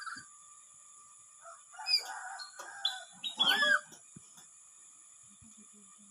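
Nuri parrot (lory) giving a quick series of loud, harsh calls with sliding pitch between about one and four seconds in, as the startled bird answers other birds' calls. It then falls quiet.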